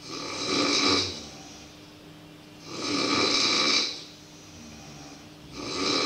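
A person snoring loudly: three snores, each about a second long, coming roughly every three seconds.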